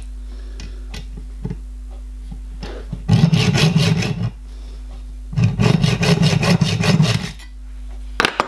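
Hacksaw cutting through a small 12BA threaded screw clamped in a vice, in two spells of quick, short rasping strokes. A sharp click near the end.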